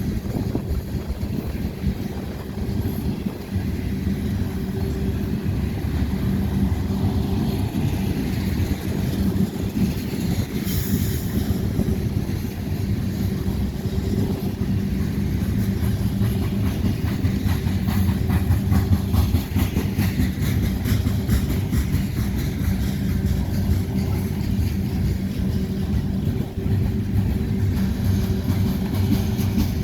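A loaded BNSF coal train rolling past: steady wheel-on-rail noise with a continuous fine clatter and a low hum, without a horn.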